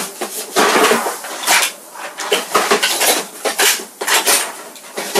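Small metal medals and trinkets clinking and rattling together in irregular bursts as they are handled and put into a box.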